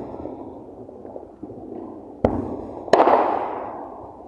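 Consumer fireworks going off: a sharp bang about two seconds in, then a louder bang a moment later followed by a crackling hiss that fades away over about a second.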